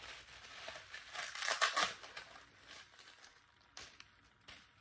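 Plastic bubble wrap rustling as it is unwrapped by hand, loudest in the first two seconds, then a couple of light taps near the end.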